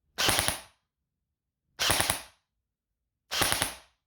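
Electric airsoft rifle (AEG) firing in its two-round burst mode: three short bursts about a second and a half apart, each a quick clatter of the gearbox cycling and shots.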